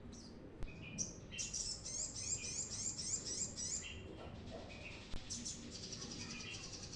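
Brown-throated sunbird (kolibri kelapa) singing energetically: a run of quick, high sweeping chirps, then a fast high trill from about five seconds in. Two sharp clicks are heard, one early and one about five seconds in.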